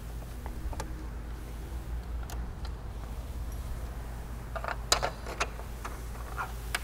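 Light clicks and knocks of hands handling the parts of a Concept2 rowing machine, sharpest in a short cluster about five seconds in, over a steady low hum.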